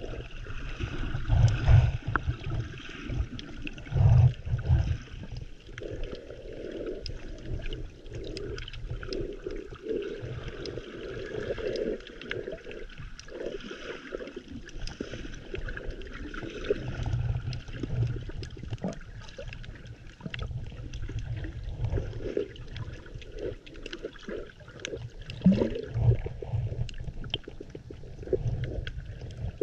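Underwater sound heard through a submerged GoPro's microphone: muffled sloshing and gurgling of moving water, with low rumbling surges several times and scattered faint clicks.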